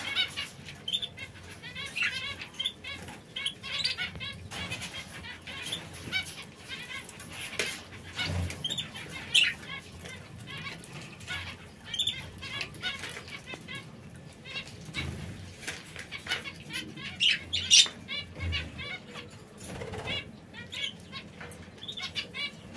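Canaries chirping in short, repeated notes, with wings fluttering now and then.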